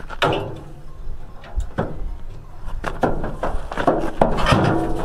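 Irregular knocks and clunks from a small trailer being opened to unload sheep.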